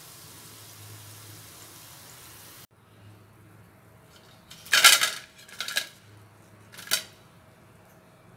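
A steady hiss of frying oil for the first couple of seconds, then after a cut a few sharp clinks and clatters, the loudest about five seconds in: a stainless-steel wire frying basket knocking against a plate as fried rice-palak balls are tipped onto it.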